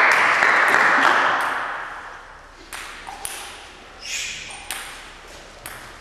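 A loud noisy sound fades away over the first two seconds. Then a table tennis ball clicks against the table and paddles, about six light, sharp hits spaced unevenly over the last three seconds.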